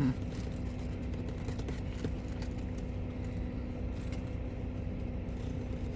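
Steady low hum of an idling car heard from inside the cabin, with a few faint clicks.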